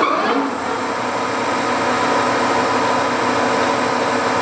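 Clausing 1250 Magnum geared-head lathe running steadily with its spindle at 400 RPM: an even mechanical hum carrying a few steady tones.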